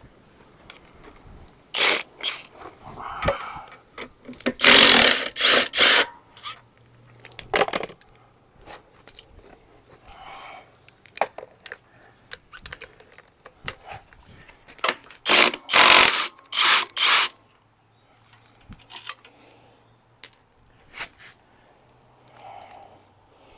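Tools working metal on a diesel engine's clutch: clinks and clanks with two clusters of short, loud power-tool bursts, a few seconds in and again past the middle, over a faint low hum.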